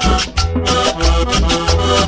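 Cumbia played loud over a sonidero sound system: a heavy bass beat under held accordion notes and a quick shaking, scraping percussion rhythm.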